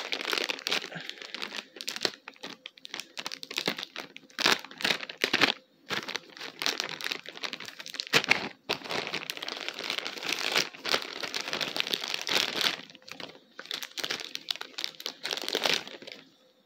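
Plastic wrapper of a McDonald's Happy Meal toy crinkling and tearing as it is opened by hand, in a long run of irregular rustles that stops shortly before the end.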